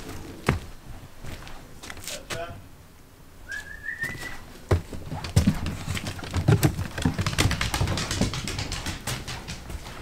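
Footsteps and knocks on a wooden deck and wooden stairs, coming thick and uneven in the second half. About four seconds in there is one short, high, rising squeak.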